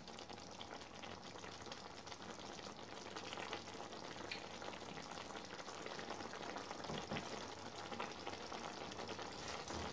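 Thick chicken curry cooking in a stainless steel pan: a steady, faint sizzle with fine crackles as the gravy bubbles.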